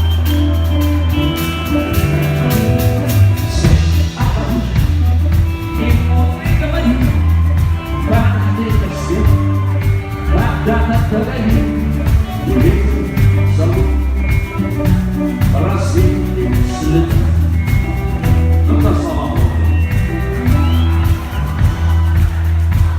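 Rock band playing live, loud, with a heavy bass line and a steady beat.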